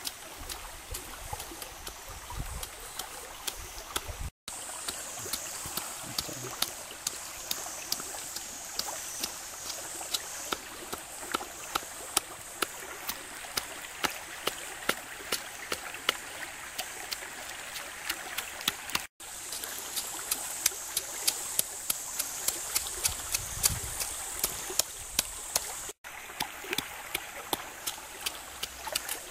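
Stone pestle pounding chillies and garlic in a coconut-shell bowl: a steady run of short knocks, about two a second, over the sound of a flowing stream.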